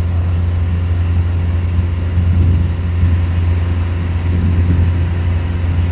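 Boat engine running steadily under way: a loud, even low drone.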